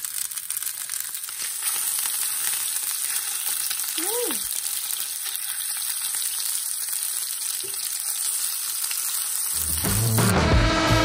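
Trout fillet frying in oil in a non-stick pan: a steady, high sizzle, with a spatula working the fish. Music with a beat comes in near the end.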